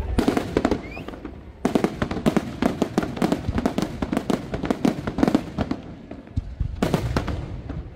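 Aerial fireworks display: a rapid barrage of shell bursts and sharp pops, dense from about two seconds in, thinning out, then another quick cluster of reports near the end.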